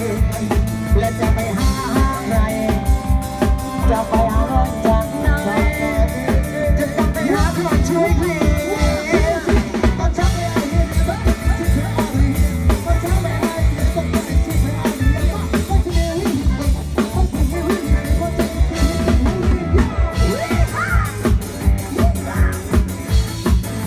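Live band music from a Thai parade-truck (rot hae) band: a fast, steady drum-kit beat with bass under a singing voice.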